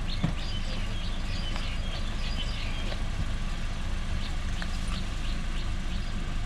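Small birds chirping in quick short calls, dense for the first few seconds and then more scattered, over a steady low rumble.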